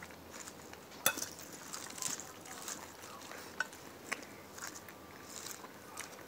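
Close-up chewing and wet mouth sounds while eating, a scatter of small clicks and smacks, with one sharper click about a second in.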